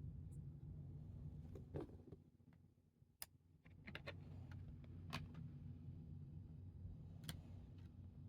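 Trading cards and pack wrappers being handled: scattered soft clicks and brief rustles over a low steady hum.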